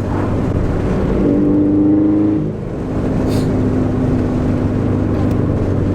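Subaru BRZ flat-four engine with a catless front pipe, running loud and steady while driving slowly in a low gear. Its tone climbs a little and swells for about a second and a half, then eases back and holds steady.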